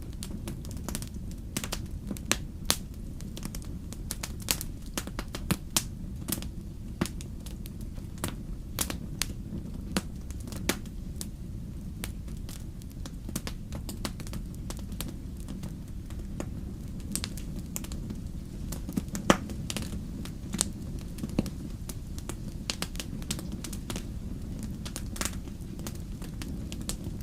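Fire burning in a fireplace, crackling: irregular sharp pops and snaps over a steady low rumble of the flames, with one louder snap about two-thirds of the way through.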